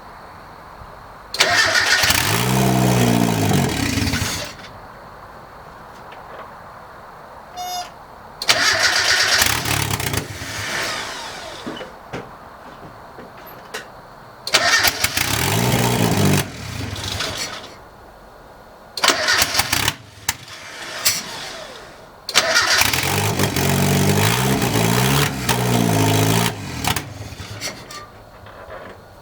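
Mazda Miata four-cylinder engine being cranked by its starter in five separate attempts of two to five seconds each, on its first start after a turbo install; it does not stay running between tries.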